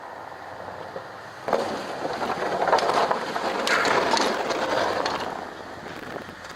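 A plow blade scraping and pushing snow along the pavement. The scraping starts abruptly about one and a half seconds in, runs for about four seconds and fades near the end.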